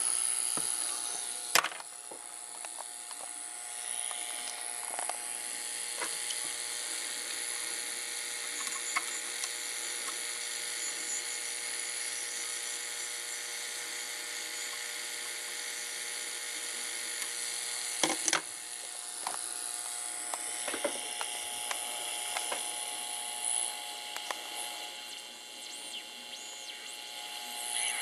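Homebrew 40-metre regenerative receiver's speaker putting out steady static hiss with several faint steady whistle tones. Sharp clicks come about two seconds in and again around eighteen seconds.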